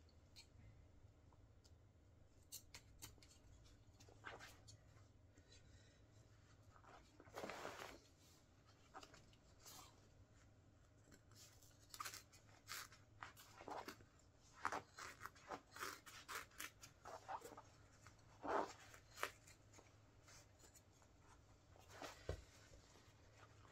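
Faint scissor snips and fabric rustles from a Wellensteyn Schneezauber jacket being cut up. The clicks and short rustles are scattered at first and grow busier in the second half, with two longer rustles.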